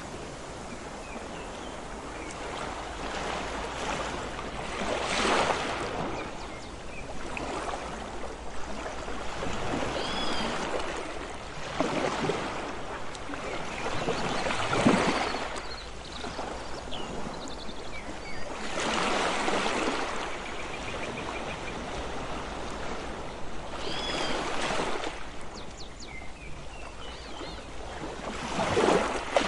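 Sea waves washing onto a beach, the surf swelling and breaking every few seconds over a steady rush of water. A few short high chirps are heard now and then.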